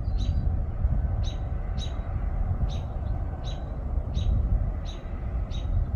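A small bird repeating a short, high chip note, about one every two-thirds of a second, over a steady low rumble of wind on the microphone.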